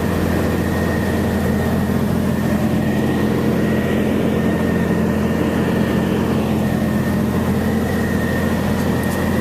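Cessna T206H Turbo Stationair's turbocharged six-cylinder Lycoming engine and propeller running steadily in flight, a constant drone with a thin steady high tone on top.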